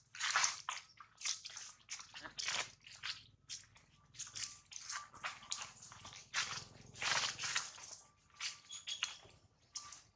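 Dry leaves crunching and rustling in short, irregular bursts, one every half second or so.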